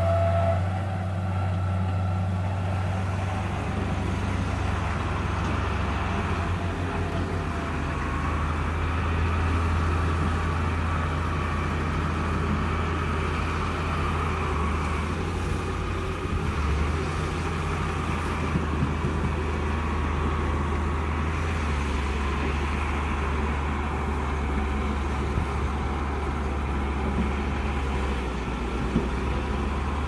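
Small crawler bulldozer's diesel engine running steadily, a low, even drone.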